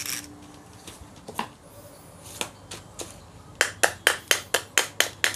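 Sharp metallic clicks from handling the disassembled Hyundai Xcent electric power steering motor: its armature is worked in the brush end housing. A few scattered clicks come first, then a quick run of about ten, some five a second, near the end.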